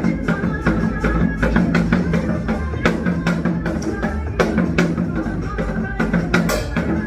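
Janggu, the Korean hourglass drum, struck in a quick rhythm over a recorded song's accompaniment, with sharp strokes several times a second.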